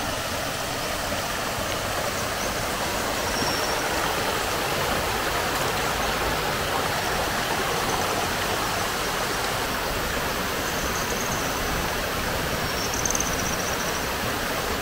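Shallow forest stream running over rocks, a steady rush of water, with a few faint high chirps about a third of the way in and again near the end.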